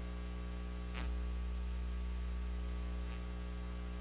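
Steady electrical mains hum with a low buzz and background hiss. A short click comes about a second in and a fainter one shortly after three seconds.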